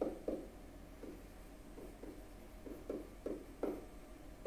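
Faint, soft taps and scrapes of a pen writing: a dozen or so short strokes at uneven intervals, over a steady low hum.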